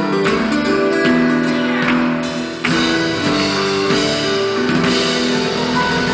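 Live rock band playing an instrumental passage, led by acoustic guitar with electric guitar and bass underneath; the sound drops back briefly about two and a half seconds in, then comes back fuller and brighter.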